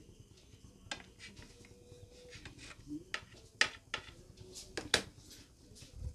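Knife cutting slices of bread into triangles, with several short, sharp knocks as the blade strikes the surface underneath.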